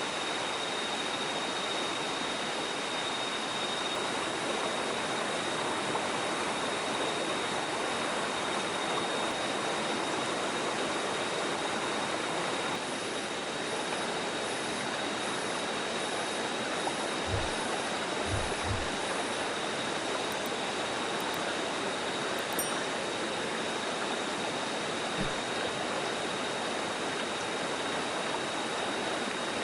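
Stream water rushing steadily, with a thin steady high-pitched tone over it and a few soft low thumps past the middle.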